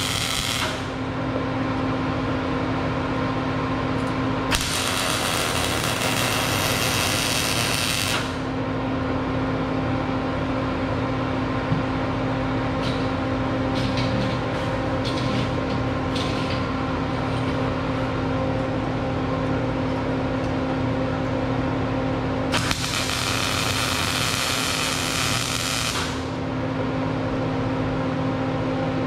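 Welder humming steadily, broken by bursts of tack welding: harsh arc crackle lasting a few seconds each, at the very start, about four seconds in and about twenty-two seconds in.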